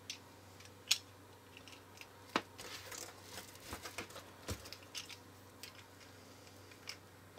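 Faint clicks and taps of hard plastic toy-ball shell pieces being handled and pressed together, with sharper clicks about one, two and a half and four and a half seconds in.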